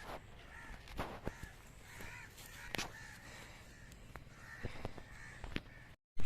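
Birds calling over and over in short harsh calls, with a few faint clicks. Near the end the sound drops out briefly, then a single sharp loud crack.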